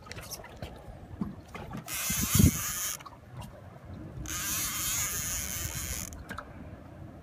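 Conventional fishing reel being cranked to take in line on a heavy rod fighting a hooked sturgeon: two spells of rasping mechanical reel noise, about a second and then nearly two seconds long. A low thump comes about two and a half seconds in.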